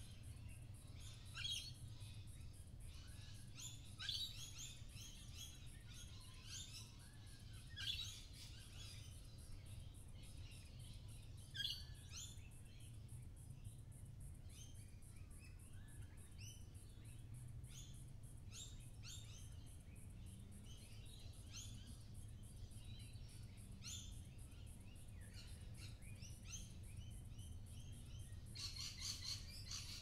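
Many birds chirping and calling all around: short sharp calls with a few louder ones scattered through, and a dense flurry of chirping near the end. A faint low steady hum runs underneath.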